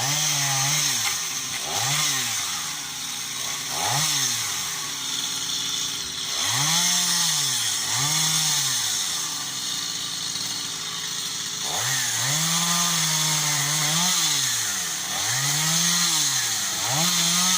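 Chainsaw engine being revved up and down over and over, each rev rising and falling in pitch within a second or two, with one longer held rev about two-thirds of the way through, as it cuts branches up in a tree.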